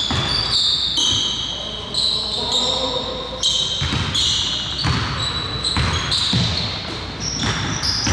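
Basketball dribbled on a hardwood gym floor, with dull bounces every half second to a second, mixed with sneakers squeaking sharply on the court as players cut and stop.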